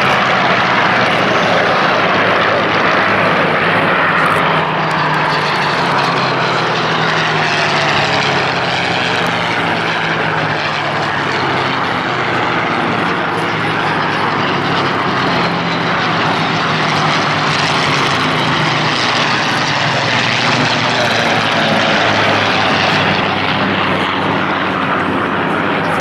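Several Second World War piston-engined fighters flying past in formation: a loud, continuous drone of many propeller engines together, the note sliding in pitch as aircraft pass by.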